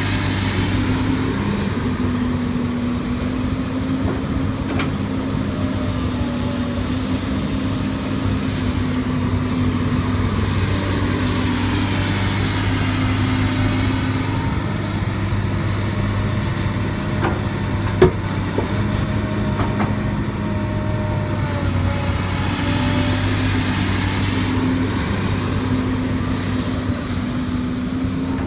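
Heavy diesel engine of earthmoving machinery running steadily at a constant pitch, with a single sharp knock about two-thirds of the way through.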